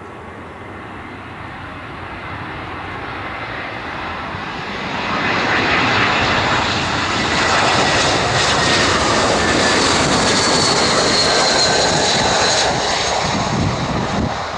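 Airbus A320-232's IAE V2500 turbofan engines on final approach, growing louder as the jet nears and then holding loud as it passes. A high fan whine runs through the engine noise and falls slowly in pitch as the aircraft goes by.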